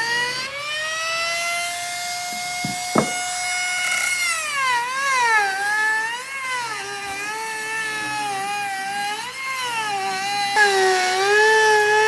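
Electric power tool's motor whining as it works wood. It spins up over the first two seconds, then its pitch repeatedly sags as it bites under load and recovers, with a sharp knock about three seconds in.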